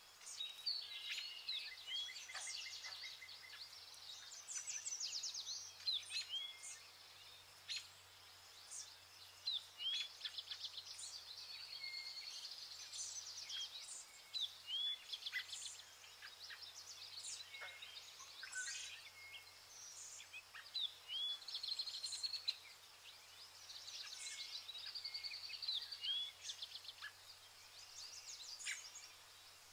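Songbirds singing throughout, with repeated chirps, rapid trills and short falling whistle notes.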